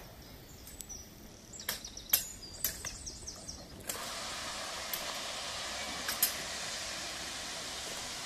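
A few sharp metallic clanks as a lineside point lever is worked. About four seconds in, a steady hiss of steam starts up from the Hunslet saddle tank locomotive and carries on.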